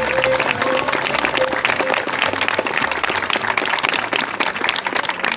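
Audience clapping in applause, dense and irregular, as the last notes of the live folk band fade out in the first second or so.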